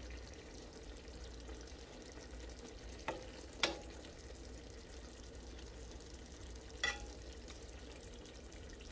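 Slotted metal spatula stirring a thick chicken, potato and cauliflower curry in a pot over a faint sizzle, with three sharp clinks of the spatula against the pot, two near the middle and one about seven seconds in.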